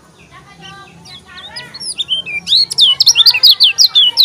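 Lemon-bellied white-eye (kecial kuning) singing: soft twittering that builds, about a second and a half in, into a loud, fast run of sharp falling whistled notes, about seven a second.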